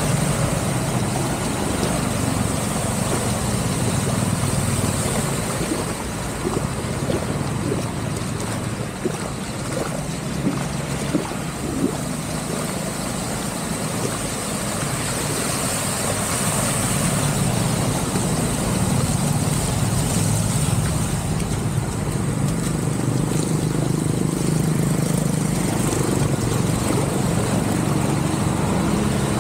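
A vehicle's engine running steadily as it drives through shallow floodwater, with the steady swish of water under the wheels.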